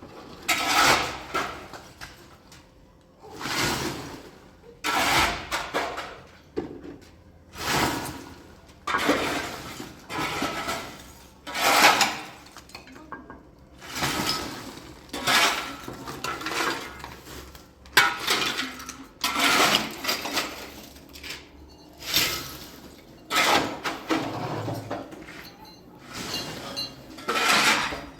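Dishes and pots clattering and clinking in repeated bursts every second or two.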